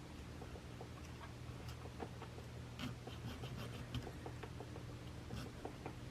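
Small hand file scraping along the edges of a hammered wire link in short, irregular strokes, smoothing off sharp points. Faint, over a steady low hum.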